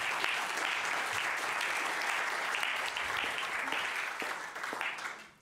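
Audience applauding, a steady spell of clapping that dies away near the end.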